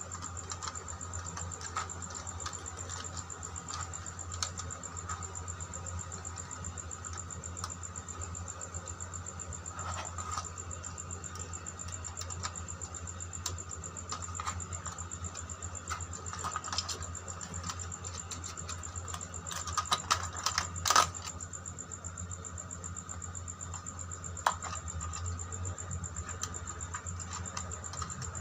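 Small irregular clicks and taps of a screwdriver, wires and plastic switch modules being handled while the neutral wires are fastened to the socket terminals of a plastic switchboard, with a brief cluster of louder knocks about twenty seconds in. A steady low hum and a faint high whine run underneath.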